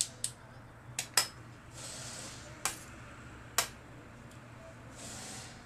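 Sharp small metal clicks and taps as a GMC Yukon key lock cylinder is handled and worked with small hand tools, five separate clicks, with two soft hisses between them.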